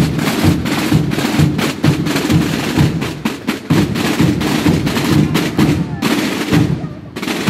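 Percussion music with fast, closely spaced drum strokes, with crowd voices underneath.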